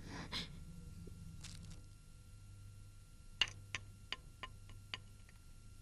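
Faint low hum, then a short run of about six sharp ticks, roughly three a second, in the second half.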